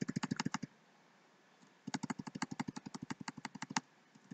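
Computer keyboard clicking in two fast, even runs of about a dozen key clicks a second, with a pause of about a second between them, as lines of code are deleted key by key.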